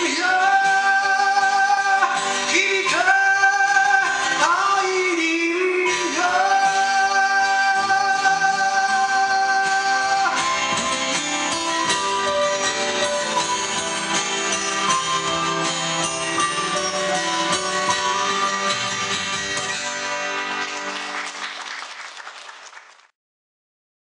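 A man sings long held notes over an acoustic guitar. After about ten seconds the guitar carries on alone, fades, and stops abruptly about a second before the end.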